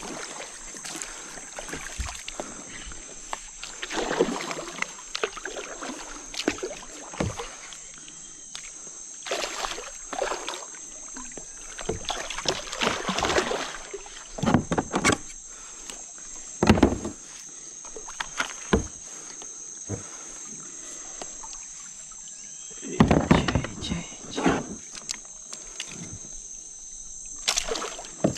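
Water sloshing and splashing against a plastic fishing kayak, with irregular knocks and rubs on the hull, while a hooked jatuarana is fought on a spinning rod; near the end the fish thrashes at the surface beside the kayak. A steady high-pitched whine runs underneath.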